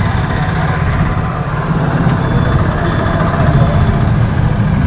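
Street traffic: motor scooter and motorcycle engines running close by, a steady low engine drone under general road noise.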